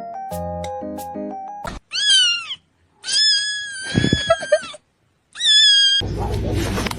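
Music of ringing mallet-like notes, cut off after about a second and a half, then a cat meowing three times: a short falling meow, a long drawn-out meow, and a short meow. A burst of rumbling room noise begins near the end.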